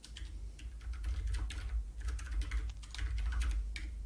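Typing on a computer keyboard: a quick, irregular run of keystrokes, over a steady low hum.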